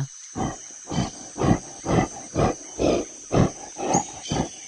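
Gorilla sound effect: a run of short, rhythmic calls, about two a second, growing weaker near the end, over a steady high-pitched background tone.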